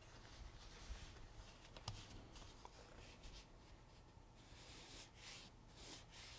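Faint swishes of a fine watercolour brush stroked across paper, several short strokes one after another, with a light tick or two about two seconds in.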